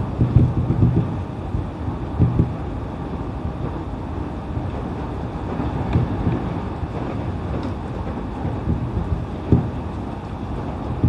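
Interior running noise of an E531 series electric train under way: a steady low rumble of wheels on the track, broken by a few short low thumps.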